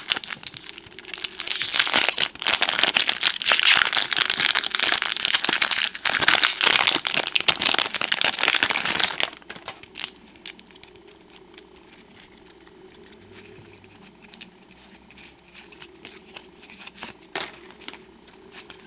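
Shiny foil wrapper of a 1991 Stadium Club baseball card pack crinkling loudly as it is torn open and pulled off the cards, for about nine seconds. Then, much quieter, faint rustles and ticks of the stacked trading cards being handled and fanned.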